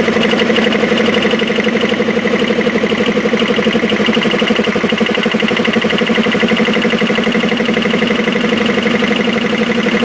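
One electric motor driving two belt-driven air compressors on a shared bed, running steadily with a fast, even pulsing beat.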